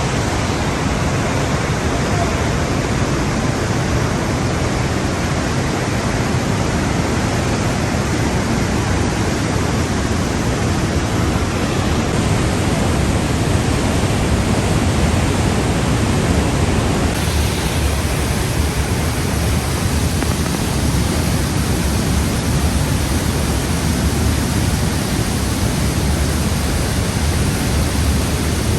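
Loud, steady rush of glacial meltwater cascading through the rock gorge of Trümmelbach Falls, shifting slightly in tone about halfway through.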